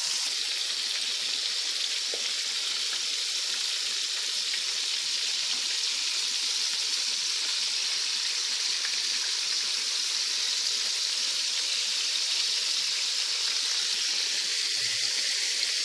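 Flour-coated chicken pieces deep-frying in a pan of hot oil over medium heat: a steady, even sizzle.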